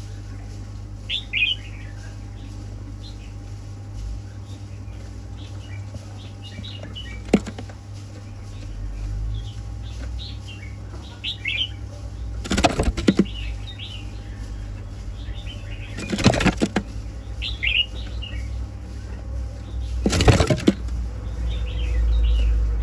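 Caged Chinese hwamei (laughingthrush) giving short sharp chirps now and then, with three bursts of wing flapping, each about half a second long, in the second half. A steady low hum runs underneath.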